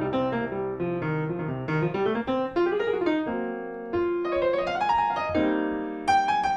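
Grand piano played solo, a flowing stream of notes rising and falling in pitch.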